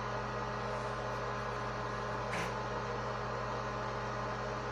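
Steady background hum made of a few low held tones, with one brief faint scratch about two and a half seconds in.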